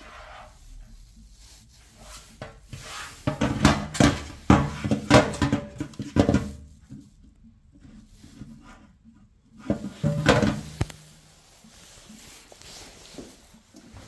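Old plastic condensate trap and corrugated condensate pipe handled and knocked against a stainless steel sink: clusters of knocks and rattles about three to six seconds in and again around ten seconds in, with quieter handling between.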